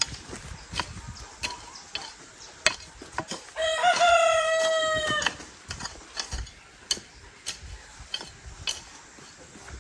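A rooster crowing once near the middle, a single held call lasting under two seconds, with scattered sharp clicks and taps around it.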